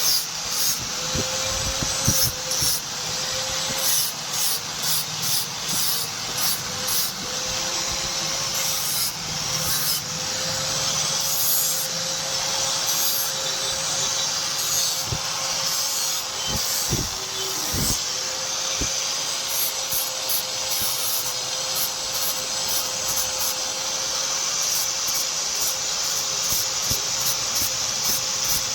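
A power tool running with a steady hum while working a steel blade, with a rasping, rubbing noise; the rubbing swells and fades in regular strokes for the first ten seconds or so, then holds steady.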